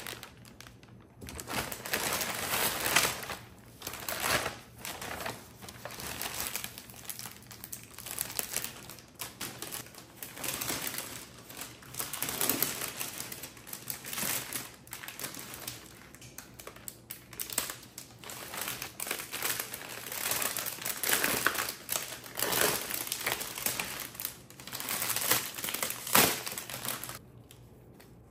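Paper and clear plastic flower wrapping crinkling and rustling in irregular bursts as a bouquet is unwrapped and handled by hand, stopping shortly before the end.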